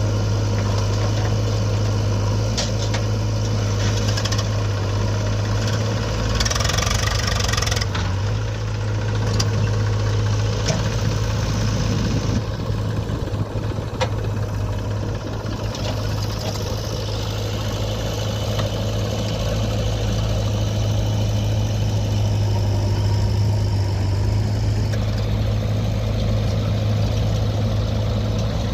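Diesel engine of a JCB 3DX backhoe loader running steadily at work with a constant low hum. A brief rush of noise comes about six to eight seconds in.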